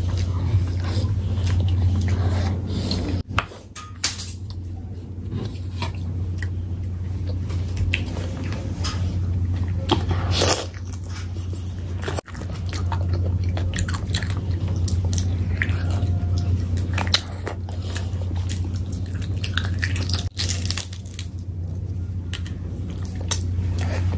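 Close-miked eating sounds: biting and chewing curried meat off the bone with rice eaten by hand, with wet squishes and mouth clicks. A steady low hum runs underneath.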